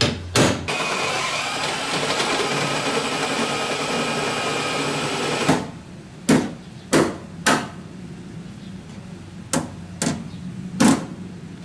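A ball-peen hammer strikes a center punch once on the Jeep's body panel, then a power drill runs steadily for about five seconds, boring a hole for a nutsert. Then come six sharp hammer taps in two groups of three, seating a nutsert in the hole.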